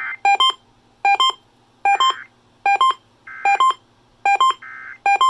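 Emergency Alert System tones: pairs of short electronic beeps, a low note then a higher one, repeating about every 0.8 seconds, with brief bursts of the screechy EAS digital header data sounding between them.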